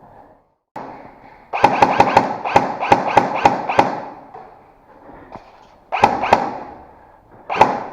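Airsoft guns firing a rapid string of about ten sharp shots, then two or three more a couple of seconds later and one near the end.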